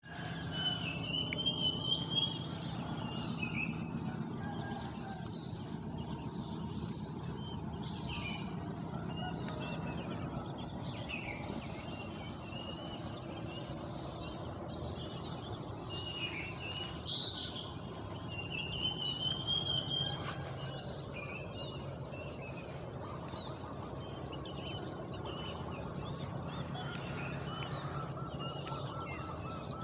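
Wild birds singing and chirping, with short warbling phrases that come and go, over a steady high-pitched hiss.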